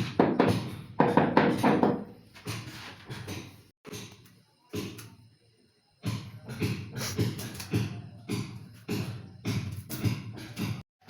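Background music with a percussive, knocking beat. It drops out for about two seconds midway and then resumes.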